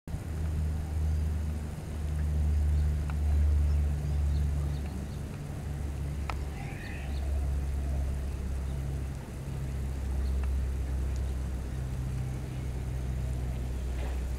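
Steady low hum that swells and dips in loudness, with a few faint clicks.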